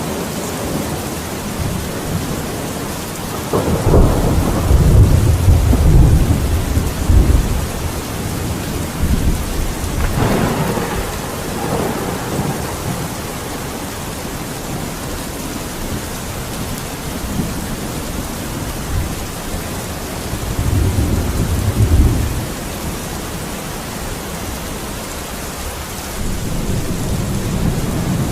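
Steady rain with thunder rumbling through it several times: a long, loud roll about four to seven seconds in, another about ten seconds in, and a shorter one a little past the twenty-second mark.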